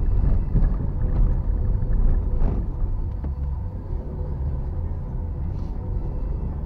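Car driving, heard inside the cabin: a low rumble of tyres on cobblestones that eases to a smoother, quieter road noise on asphalt about three seconds in, with a brief knock about two and a half seconds in.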